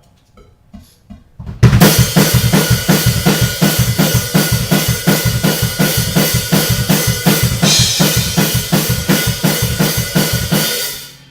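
Drum kit played: a few light taps, then about a second and a half in a fast, steady beat of bass drum and snare with cymbals, which stops shortly before the end.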